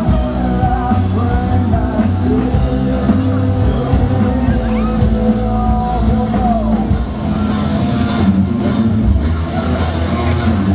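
Rock music with singing over a steady band accompaniment.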